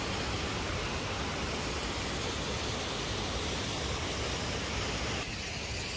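Waterfall rushing, a steady even roar of falling water with a low rumble; it drops a little in level about five seconds in.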